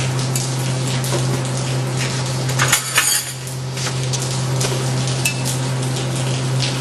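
A TIG welding arc on a cast housing gives a steady electrical buzz with a crackling sizzle. About three seconds in, the buzz breaks off briefly with a few sharp metallic clinks, then carries on.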